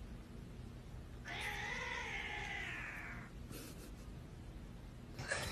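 A cat meowing once: a single drawn-out meow of about two seconds that drops a little in pitch at the end.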